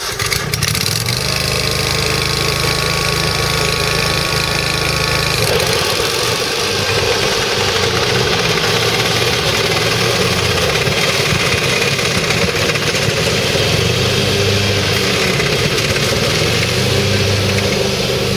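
John Deere 667A stander mower's 23 hp Kawasaki vertical-shaft engine running steadily just after being started, with a thin high whine over the first five seconds or so.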